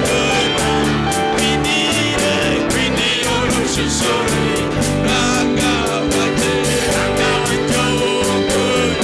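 Worship band music with a steady beat and sustained melody lines, with no spoken words.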